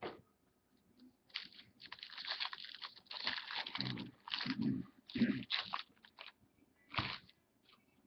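Packaging crinkling and rustling in irregular bursts, with a few short clicks and soft thuds, as trading cards and their wrapper are handled.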